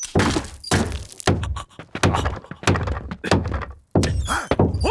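A rapid, irregular series of cartoon slapstick thuds and knocks.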